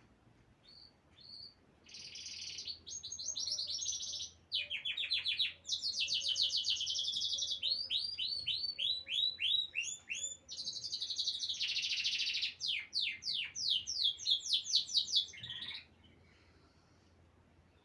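A small songbird singing close by: one long, varied song of rapid trills, buzzy passages and falling runs of quick notes, starting about a second in and stopping shortly before the end.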